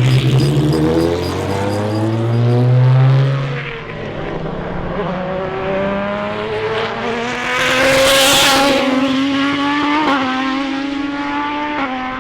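Ferrari 550 Maranello Prodrive race car's V12 engine accelerating under load, its pitch climbing for a few seconds, dropping at a gear change about four seconds in, then climbing again, loudest around eight seconds in.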